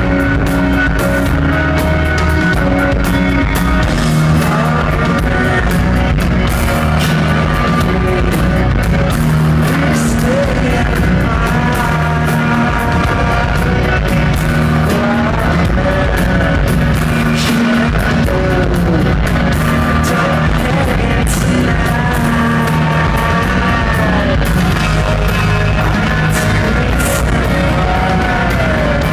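Rock band playing live: electric guitar, bass and drums, with a voice singing over them. Loud, with rough sound quality as picked up from the audience.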